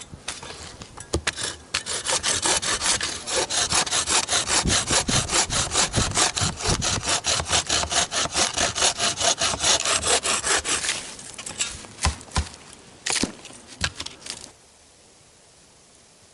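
Hand saw cutting through fallen deadwood for firewood: quick, even back-and-forth strokes for about nine seconds, then a few scattered knocks before it stops.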